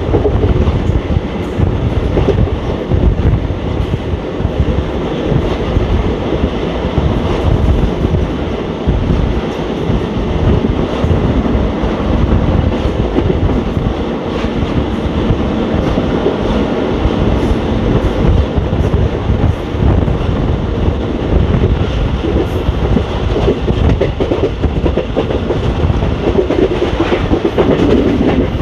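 ICF passenger coaches running at speed, heard from on board: a steady rumble of wheels and bogies with a continuous rapid clatter of the wheels over the rail joints.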